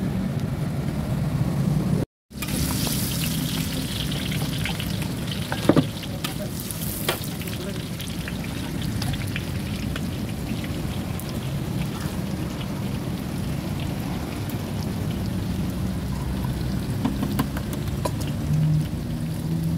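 Rice frying in a large steel wok: a steady sizzle with scattered small scrapes and clinks from the metal spatula, and one sharp clank of metal on the wok about six seconds in.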